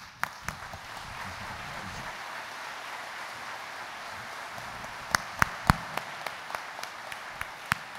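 Audience applauding in a large hall. From about five seconds in, sharper single claps stand out over the crowd at roughly three a second.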